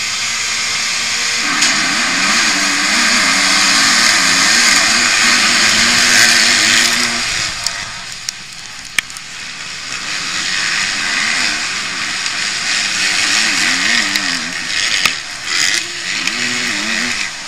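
Pack of motocross bikes accelerating hard off the start gate, heard from on board one of them: the nearest engine's pitch climbs and drops again and again as it shifts through the gears, over a heavy rushing noise. The engine eases off about halfway through, then pulls hard again.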